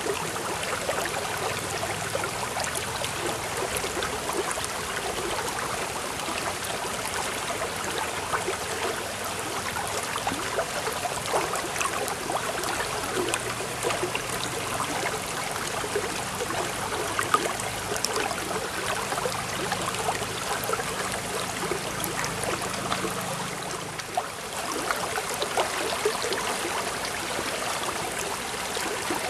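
Steady babbling of running water, like a small stream, with a fine continuous trickling and gurgling texture.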